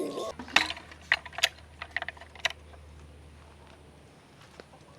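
A quick run of sharp clicks and taps, about eight in the first two and a half seconds, over a faint steady low hum.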